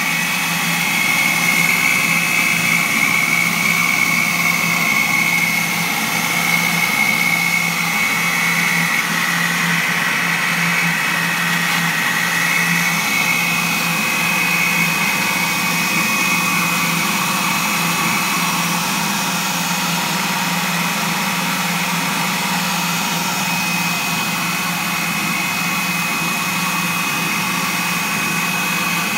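A steady machine drone with a high whine that wavers in pitch through the first half, then settles into a thin steady tone.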